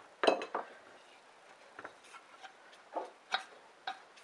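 Irregular light metallic clicks and knocks as a stuck exhaust valve is worked back and forth in the valve guide of a Briggs & Stratton flathead engine block, being freed with penetrating oil. The sharpest click comes about a third of a second in, and a few more come around three seconds in.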